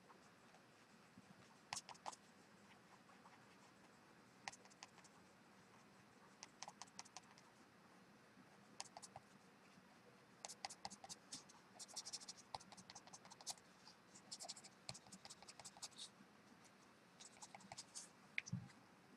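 Pen scratching on paper in short quick strokes, faint, coming in clusters and busiest around the middle. A soft bump near the end.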